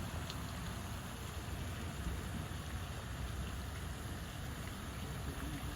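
Steady background noise with a low rumble and no distinct events.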